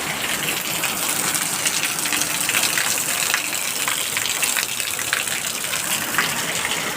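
Rain falling steadily: an even hiss of water with many small drops splashing through it.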